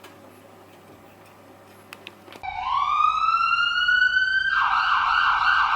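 Faint room tone, then about two and a half seconds in an emergency-vehicle siren starts with one rising wail and, about two seconds later, switches to a fast warble of roughly four cycles a second.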